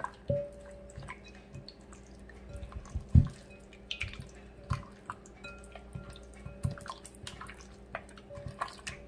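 Wet squelching and squishing of raw chicken legs being worked by hand in a sticky soy-sauce and spice marinade in a glass bowl, in irregular bursts, with a louder thump about three seconds in.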